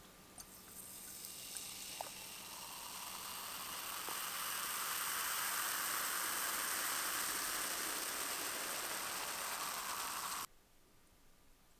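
Cola poured into a glass, fizzing hard as the foam head rises: a hiss of bursting bubbles that grows louder over several seconds, then cuts off suddenly near the end.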